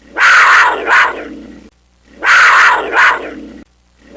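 Black panther roar: a loud, rasping two-part snarl, a long rasp then a shorter one, repeated about every two seconds.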